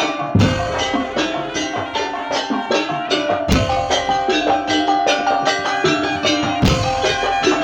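Madurese tongtong (daul) percussion ensemble playing: a fast, even run of wooden strikes over pitched notes that carry a melody, with a deep drum hit about every three seconds.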